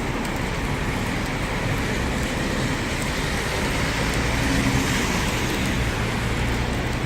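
Heavy rain pouring steadily, with the low hum of road traffic beneath it. A vehicle's engine grows a little louder around the middle.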